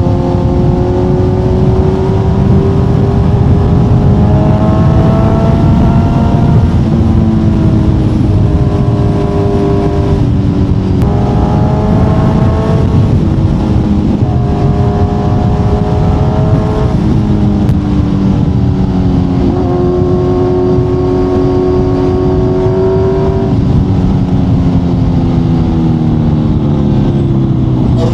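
Kawasaki Z900's inline-four engine through an Akrapovic exhaust, ridden under way. The engine pitch climbs and steps down several times as it changes gear, then falls away near the end as it eases off. Heavy wind rush runs under it throughout.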